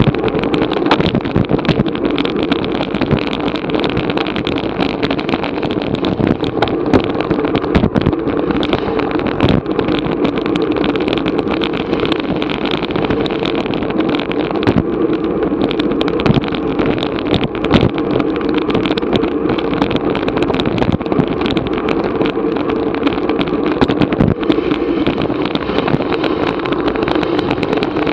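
Steady rush of wind and road noise on a bicycle-mounted action camera moving at race speed, with frequent small clicks and rattles throughout.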